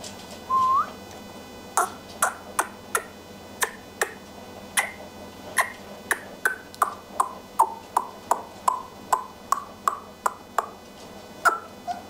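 A person calling Rottweiler puppies: one short rising whistle, then a steady run of short, squeaky kissing sounds, about two to three a second.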